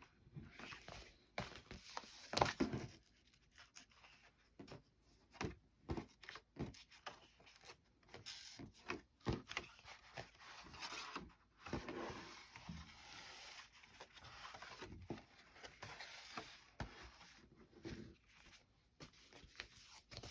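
Irregular rustling and light taps of paper doll books being handled and leafed through, with short scraping sounds of paper and card.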